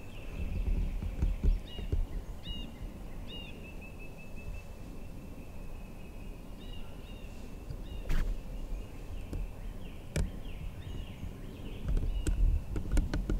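Woodland ambience: a steady high-pitched trill with short bird chirps over it, a low rumble underneath, and a few sharp clicks, the clearest about 8 and 10 seconds in.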